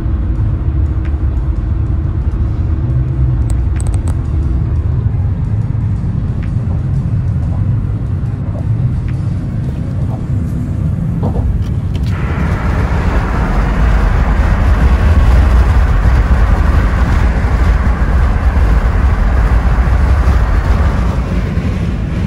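Car driving at highway speed, heard from inside the cabin: a steady low rumble of engine and tyres. About twelve seconds in, a louder rush of wind and tyre noise suddenly joins it, then eases shortly before the end.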